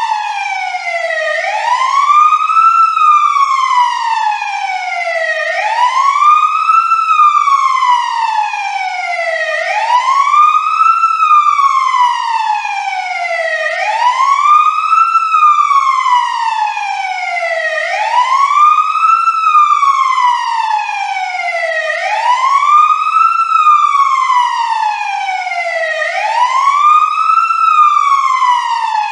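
Wail siren sounding continuously, its pitch sweeping up quickly and falling back more slowly, about once every four seconds, seven times over.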